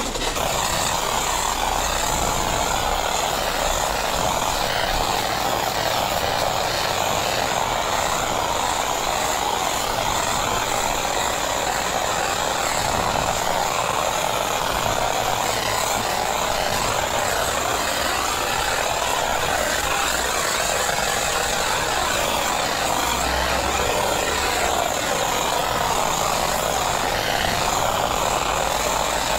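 High-pressure jet-wash lance spraying water: a steady hiss that holds at one level throughout.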